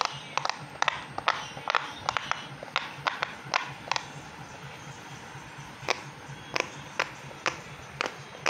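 Silicone pop-it fidget toy bubbles being pressed in by a finger, making sharp pops several a second. There is a pause of about two seconds halfway through, then the pops come about every half second.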